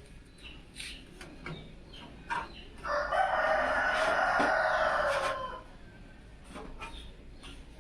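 A rooster crowing once, one long call of about two and a half seconds in the middle, with scattered light clicks and taps around it.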